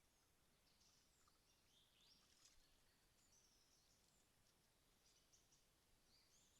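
Near silence in the open, with faint, high bird chirps scattered through it, the clearest a little over two seconds in.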